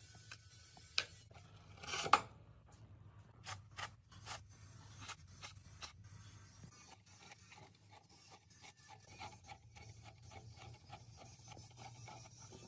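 Hand work on fan parts: a string of sharp clicks and knocks over the first six seconds, the loudest about two seconds in, then faint steady rubbing or scraping.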